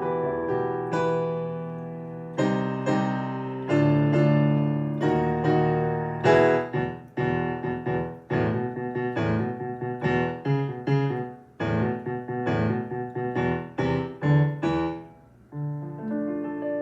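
Roland FP-30 digital piano played on its acoustic piano sound: held chords at first, then a quick passage of separate notes from about six seconds in, settling on a softer held chord near the end.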